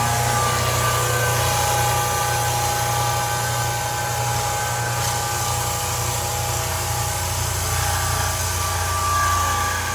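Electric drum floor sander running steadily as it sands hardwood floorboards: a constant motor hum and whine over the rush of the abrasive drum on the wood.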